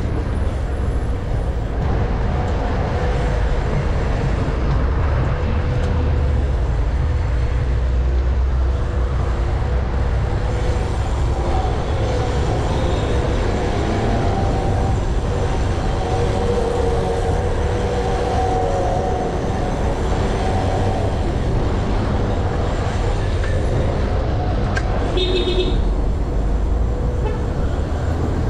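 Steady street noise while riding a BMX bike through city traffic: a low wind rumble on the microphone with passing car engines, and a short horn toot near the end.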